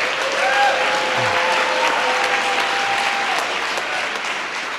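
Audience applauding, the clapping dense and steady.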